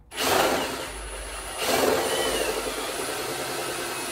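Cordless drill running steadily, spinning the bandsaw vise's lead screw to open the movable jaw. It starts just after the beginning and gets louder about one and a half seconds in.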